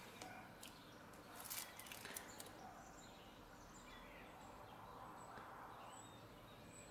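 Near silence: faint room tone with a few soft, light clicks about a second and a half to two seconds in.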